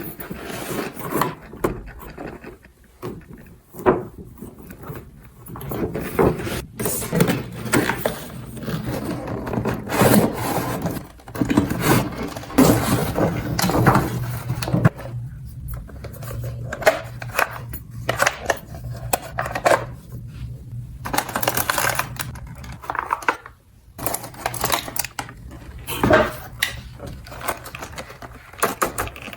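Small hard plastic toy pieces being handled, giving irregular clicks, taps and scrapes. A low steady hum runs underneath from about a third of the way in.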